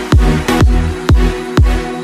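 Electronic dance music with a steady kick drum about two beats a second over bass and sustained synth chords.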